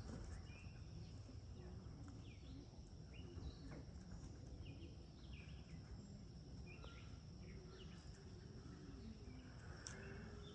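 Quiet outdoor ambience: a steady high insect drone, short bird chirps scattered throughout, and a low background rumble.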